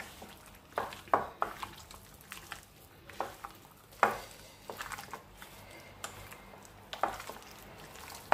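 Raw turkey wings being hand-mixed with flour, cornstarch and egg in a glass bowl: irregular knocks and taps of the meat and gloved hand against the glass, several seconds apart.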